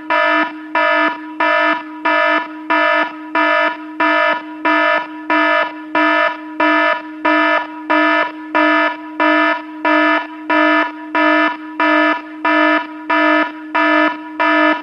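Electronic warning alarm sounding a steady, evenly repeating beep, about two beeps a second, over a continuous low tone.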